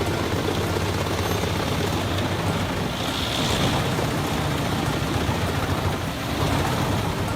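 Truck-mounted Eschlböck Biber 84 wood chipper running at full throttle, its engine drone under a steady rush of wood being chipped.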